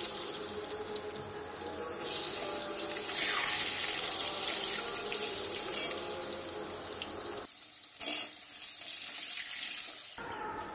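Potato wedges sizzling steadily in hot oil in an aluminium kadai, with a couple of brief knocks of the metal spatula against the pan.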